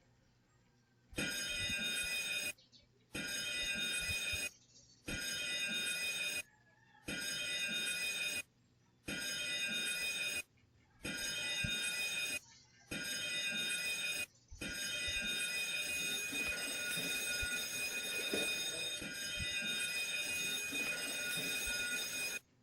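Ship's general emergency alarm ringing in seven short rings followed by one long ring, the signal that calls all crew to their emergency stations.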